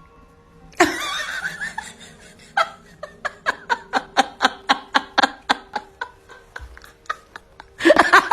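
A person laughing hard: a fast, even run of short bursts, about three to four a second, starting a little past two seconds in after a louder first outburst.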